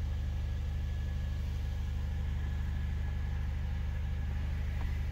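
Mercedes-AMG CLA 45's turbocharged 2.0-litre four-cylinder idling steadily, heard from inside the cabin as an even low hum.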